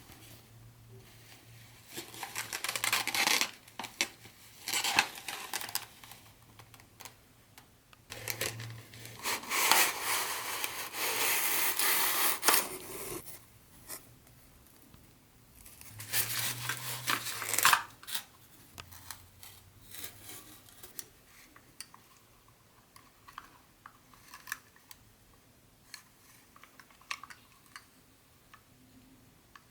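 Packaging being handled and opened: several bursts of rustling and tearing, the longest in the middle. In the last third these give way to light scattered clicks and taps.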